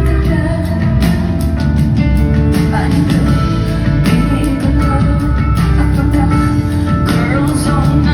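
Live rock band music with a steady beat and sustained keyboard-like notes, a woman singing over it.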